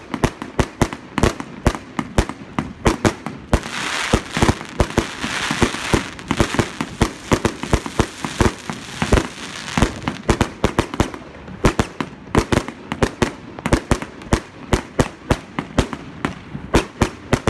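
Aerial fireworks going off in quick succession, a rapid run of sharp bangs about three or four a second. A dense crackling fills the stretch from about four to ten seconds in.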